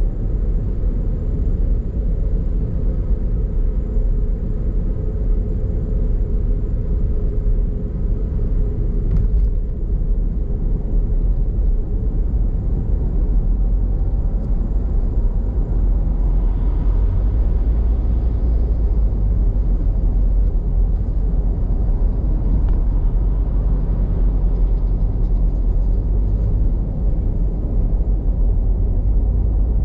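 Car driving on an expressway: a steady low rumble of road and wind noise. A faint hum near the start fades away over the first several seconds.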